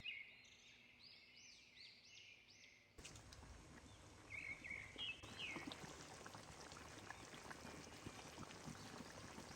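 Near silence, with a run of about five faint high chirps in the first three seconds and scattered faint clicks after.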